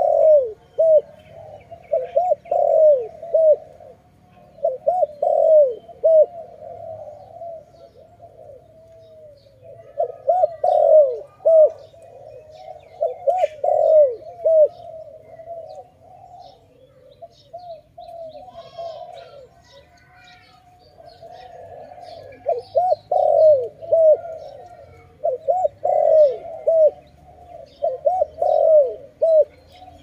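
Spotted dove cooing: loud, repeated low coo phrases in bouts, quieter for a few seconds past the middle.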